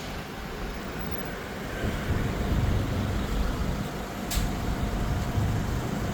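Low, uneven rumble of road traffic, swelling after about two seconds, with one short sharp noise about four seconds in.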